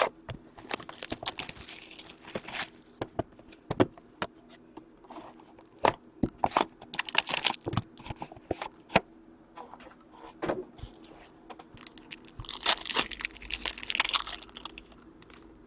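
A sealed box of hockey cards being torn open by hand: wrapping tearing and crinkling in several spells, with many small clicks and taps of handling.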